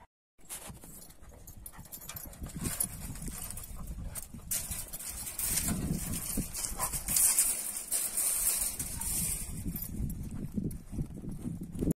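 Several large Kangal-type shepherd dogs moving about and play-wrestling on dry dirt, with irregular scuffling and footfalls that grow louder about halfway through.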